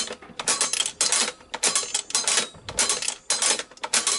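Coin-operated gumball machine's crank mechanism ratcheting through a nickel vend, about two clacks a second, as it dispenses five gumballs.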